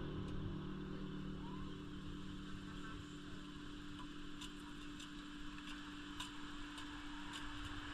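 Vehicle engine idling with a steady low hum, joined by a few faint, sharp ticks in the second half.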